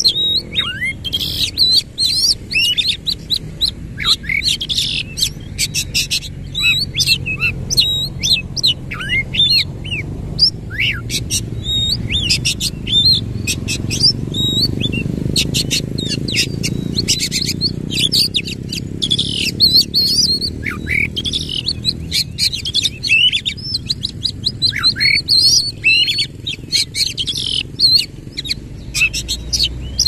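Caged Oriental magpie-robin singing a loud, continuous song of rapid sharp whistles, chirps and trills with hardly a pause, over a low background rumble.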